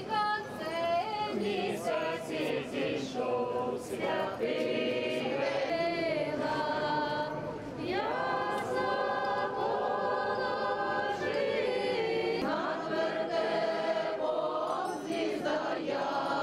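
A group of carolers, men and women, singing a Christmas carol together unaccompanied, with long held notes, in a vaulted metro station hall.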